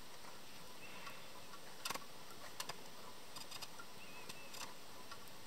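House finch cracking sunflower seeds and pecking at a wire-mesh feeder: sharp little clicks, a quick cluster of three about two seconds in and scattered single clicks after, over a steady hiss.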